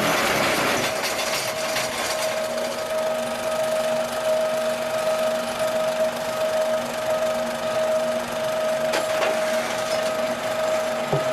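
QTJ4-25 semi-automatic block machine running: a steady mechanical hum with a constant high tone, joined by a lower tone about two seconds in, and a few faint knocks near the end.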